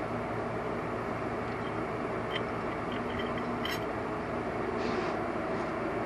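Steady background hum in the garage, with a few light clicks as motorcycle clutch plates are handled and fitted, a cluster of them about two to four seconds in.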